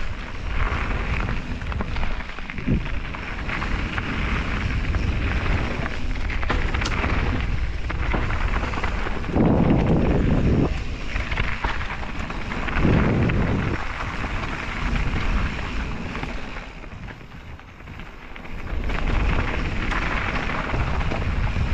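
Santa Cruz mountain bike rolling fast down a loose gravel singletrack: tyres crunching over gravel and stones and the bike rattling, with heavy wind rumble on the GoPro's microphone. The noise comes in surges and eases briefly about three-quarters of the way through.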